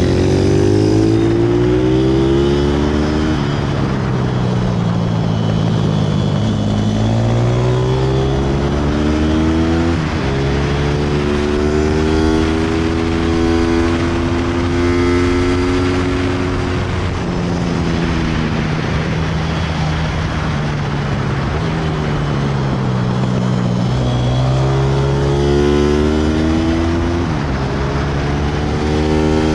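Pit bike engine at full lap pace, its pitch climbing as it accelerates through the gears and falling back as it slows for corners, several times over, with steady wind noise underneath.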